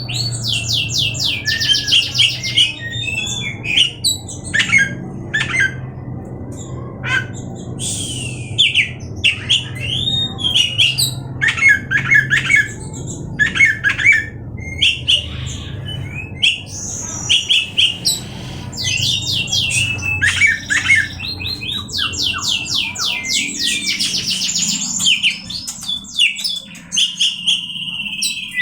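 Oriental magpie-robin (kacer) singing: a varied song of rapid trills, clear whistles and harsh notes in phrases with short gaps. A low hum sits underneath and fades near the end.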